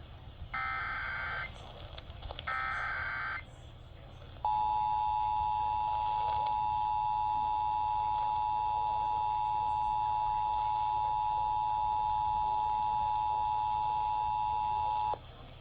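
Emergency Alert System tones on AM radio. First come the last two of the three short SAME header data bursts, each about a second long. About four seconds in, the steady two-tone attention signal starts, holds for about ten seconds, and cuts off suddenly near the end. The sequence signals an alert activation, here for a tornado warning.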